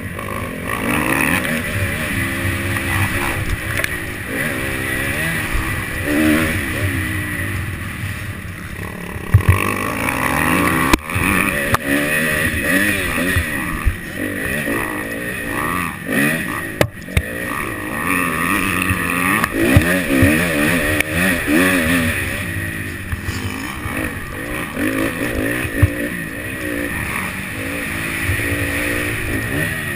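Dirt bike engine running hard, its pitch rising and falling over and over as it revs and shifts on a motocross track. Wind and dirt noise run underneath, with a few sharp knocks.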